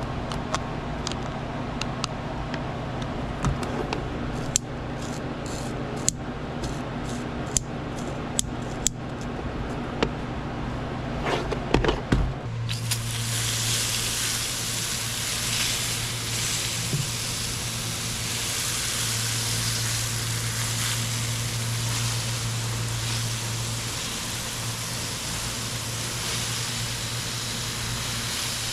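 Scattered sharp clicks and knocks of handling. Then, about twelve seconds in, a steady hiss starts suddenly and runs on: water spraying from the repaired garden watering wand.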